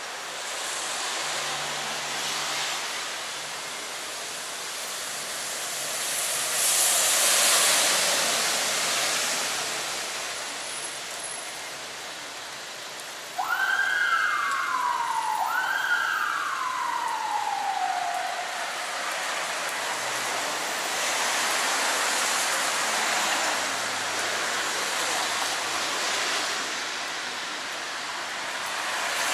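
Street traffic on a wet road, a steady hiss of tyres and engines with one vehicle swelling past early on. About midway, a siren sounds two falling wails about two seconds apart.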